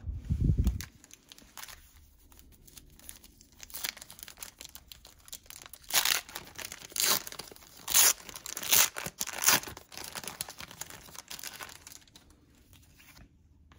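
Wrapper of a 1990 NFL Pro Set card pack being torn open and crinkled by hand, a string of sharp crackles that is loudest from about six to ten seconds in. A low thump comes right at the start.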